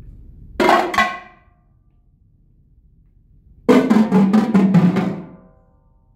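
Marching tenor drums played by two drummers in unison: two loud strokes about half a second apart, then, about three and a half seconds in, a quick run of strokes lasting about a second and a half, the drums' pitched tones ringing briefly after.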